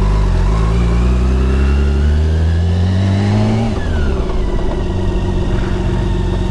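BMW K1600B's inline-six engine pulling away under throttle, its pitch rising steadily for nearly four seconds, then falling off and running on at a steady, lower pitch.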